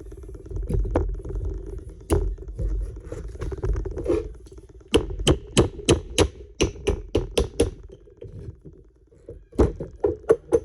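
Hammer blows on metal, knocking at a stuck part of a Honda Civic front spindle assembly: a few scattered knocks, then a quick run of about ten sharp strikes, roughly three a second, and a few more near the end.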